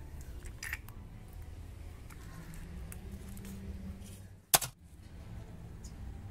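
Low steady background rumble with a few faint small clicks from handling, and one sharp loud click about four and a half seconds in.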